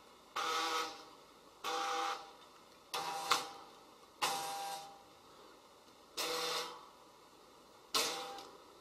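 Geared stepper motors of the robot's wire-winding units running in six short bursts of whirring whine, each about half a second, as they reel the four wires in and out to reposition the hanging platform.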